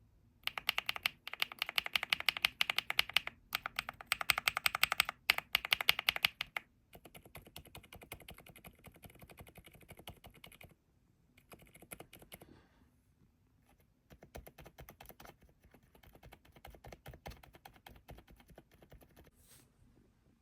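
Rapid keystrokes on a Rainy 75 mechanical keyboard fitted with silent switches. A fast run of loud clicking lasts about six seconds, then softer typing comes in short spells with brief pauses.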